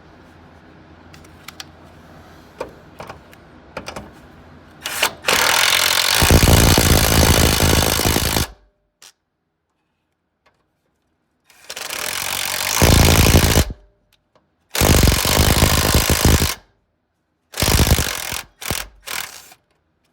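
Impact wrench hammering in several bursts of one to three seconds, then three short blips near the end, running the cleaned ground-wire bolts back in.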